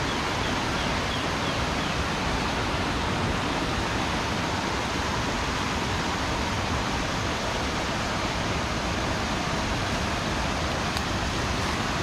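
Steady rushing of a large waterfall, an even unbroken roar of falling water.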